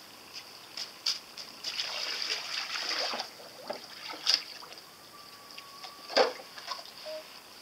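Small toy hydrofoil kayak towed across the water on a line, splashing and skimming the surface: a rush of spray about two seconds in, then sharp slaps around four and six seconds in.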